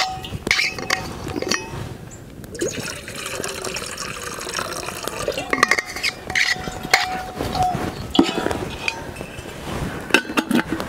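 Water poured from a plastic bottle into a black camp pot, splashing as the pot fills, with clicks and knocks as the bottle and pot are handled.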